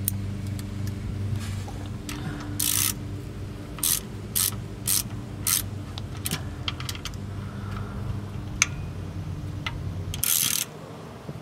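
Hand ratchet turning the 10 mm bolts that hold the engine oil cooler line fitting, tightening them down on a new gasket. It clicks in several short runs, a quick series in the middle and another near the end.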